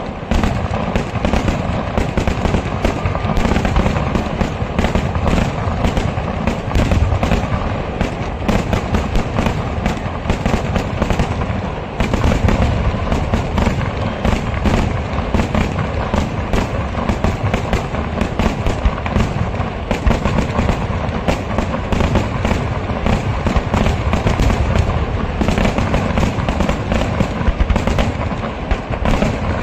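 Kerala vedikkettu fireworks barrage: a dense, unbroken rattle of firecracker and shell blasts, many bangs a second, with heavy low booms under them.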